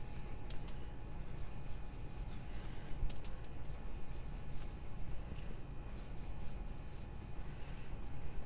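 Small paintbrush rubbing paint onto a wooden sign in short, irregular strokes, over a low steady hum.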